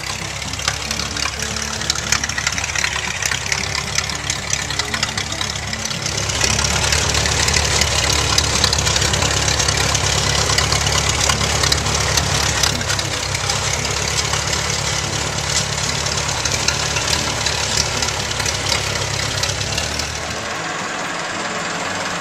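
1937 Cletrac crawler tractor's engine running with a fast knocking beat as it drives over snow. It grows louder about six seconds in as it comes close, and the low rumble drops away near the end.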